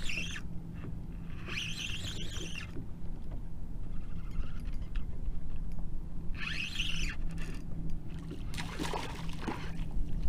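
Fishing reel whirring in two short spells while a hooked sheepshead is fought from a kayak, then water splashing near the end as the fish thrashes at the surface beside the hull, over a steady low hum.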